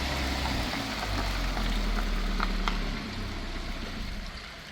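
A low, steady engine rumble that eases off about three seconds in, with a few faint clicks.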